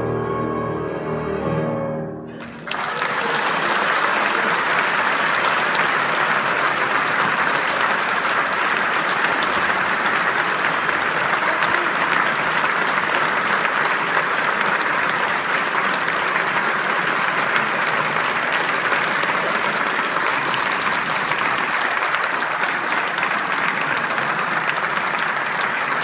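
A piano trio of piano, violin and cello plays the closing notes of a classical piece, then stops about two and a half seconds in. A large audience starts applauding and keeps up steady applause.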